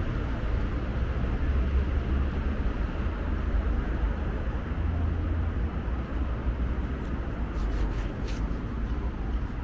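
Steady city street traffic noise, a continuous deep rumble with a hiss of road noise over it, and a few faint ticks about eight seconds in.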